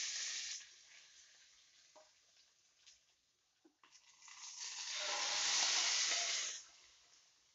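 Hot-oil tempering of mustard seeds and curry leaves sizzling as it is tipped out of a small pan and scraped out with a spoon. Two bursts: a short one at the start, then a longer, louder one from about four seconds in, fading near the end.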